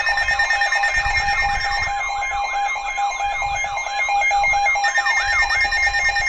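Emergency alert tones: several electronic alarm tones sounding at once, steady tones under a warbling sweep that repeats about three times a second.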